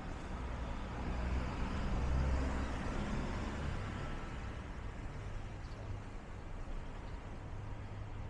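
Street traffic: a motor vehicle's low engine rumble swells to its loudest about two seconds in and fades as it passes, over steady city street noise.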